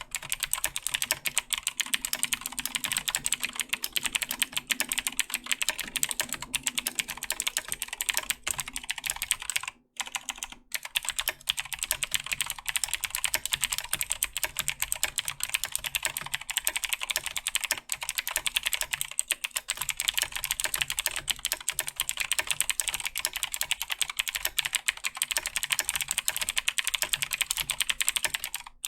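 Fast continuous typing on a Razer BlackWidow 2014 Tournament Edition mechanical keyboard with clicky Razer Green switches, a dense run of sharp key clicks that breaks off briefly about ten seconds in.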